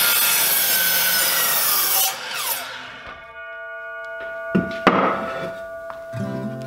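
DeWalt 12-inch double-bevel miter saw cutting through a piece of weathered treated lumber for about two seconds, then the blade winding down with a falling whine.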